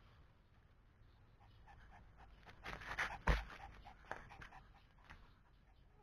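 A Pomeranian brushing against the camera and through leaves: scratchy rustling, with a sharp knock about three seconds in as it bumps the microphone, and a few lighter clicks after.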